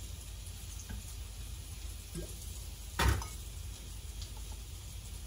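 Seasoning bottles being handled at a kitchen counter: a few light clicks over a low steady hum, and one short, loud clunk about three seconds in.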